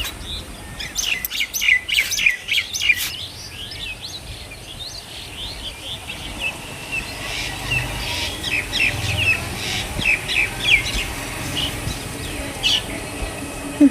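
Small birds chirping: quick, high chirps in dense clusters during the first few seconds and again through the second half, with a short sharp sound right at the very end.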